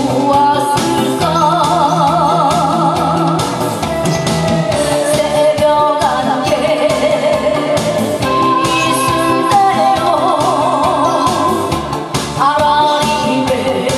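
A woman singing through a microphone and PA, holding her notes with a strong, wide vibrato, over amplified band accompaniment with a steady beat.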